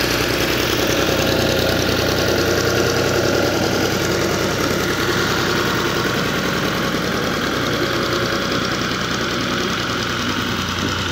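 Al-Ghazi diesel tractor engine running steadily as the tractor pushes loose soil with its front dozer blade. The engine sound fades a little as the tractor moves off.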